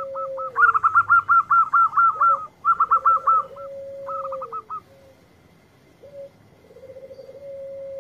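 Zebra dove (perkutut) cooing: a short lead note, then a drawn-out purring coo that falls away at the end, heard twice. Over the first half runs a fast series of higher, clipped, hooked notes, about eight a second, which are the loudest sound and stop about five seconds in.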